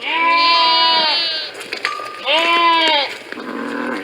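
Sheep bleating: two long, loud bleats about two seconds apart, then a softer, lower bleat near the end.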